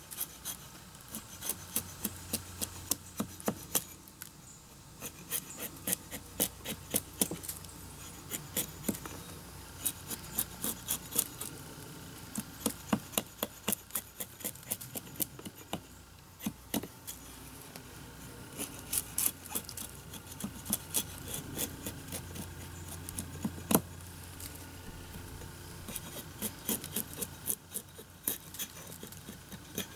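A bare axe head, gripped in the hand without a handle, chopping and shaving down a wooden handle blank held upright against a log: runs of short, sharp knocks of steel biting into wood, a few strokes a second, with short pauses between runs.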